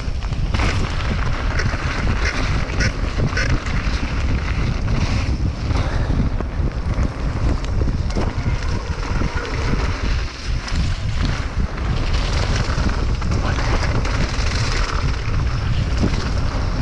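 Wind buffeting the microphone over the rumble of a mountain bike riding down a rough trail, with scattered clicks and rattles from the bike and tyres over the ground.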